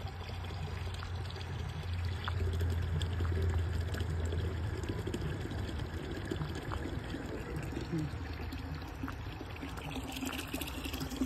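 Water running steadily and pouring into a container, a little louder a few seconds in.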